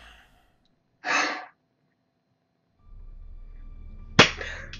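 A sharp gasp about a second in, then faint music from the end credits starting near three seconds, with another sharp intake of breath just after four seconds.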